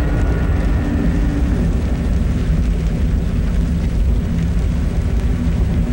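Steady, deep rumbling noise, a documentary sound effect for the sun's seething surface of burning gas.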